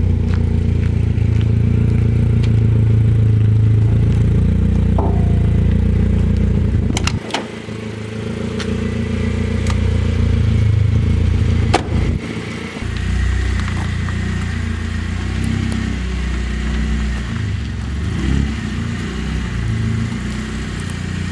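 BMW E30's engine running as the car is driven, a steady low note that dips sharply twice, with a click each time, and then picks up again.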